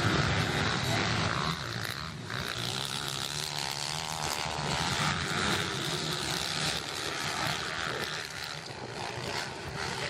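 Motocross motorcycle engines running, a steady mechanical drone that swells and eases a little over the seconds.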